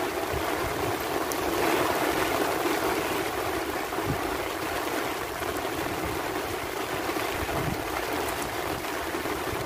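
Steady rain falling, a dense even hiss.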